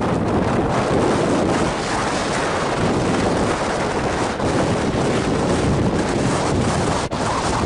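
Wind blowing hard across the camera's microphone, a loud steady rush that drops out for an instant near the end.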